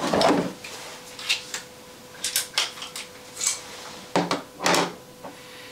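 Handling noises from pistol gear (holster, magazine, pistol) being picked up and set down on a stand: a string of light clicks and knocks, with two louder clunks about four seconds in, over a faint steady hum.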